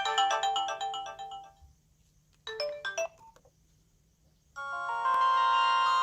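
Nokia 2310 mobile phone's speaker playing ringtones. A fast run of bright beeping notes fades out about a second and a half in, and a short burst of a few notes comes near the middle. After a pause, a new tune with longer held notes starts about four and a half seconds in.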